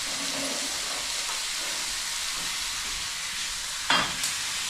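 Cubed chicken breast sizzling as it fries in hot oil with caramelized onion in a cooking pot, a steady frying hiss. A sharp knock near the end, followed by a lighter one.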